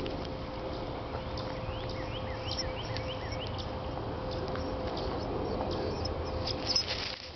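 Outdoor background with a steady low hum and rumble, and scattered faint short high chirps.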